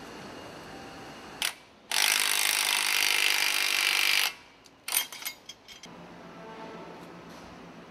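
Power tool running in one steady burst of about two seconds as bolts are driven on a car's front suspension and brake hub, cutting off abruptly, followed by a quick cluster of sharp metallic clicks.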